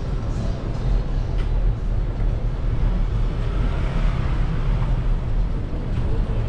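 Steady low rumble of wind and road noise on a GoPro mounted on a moving bicycle, with a car's tyre hiss swelling briefly as it passes close by about four seconds in.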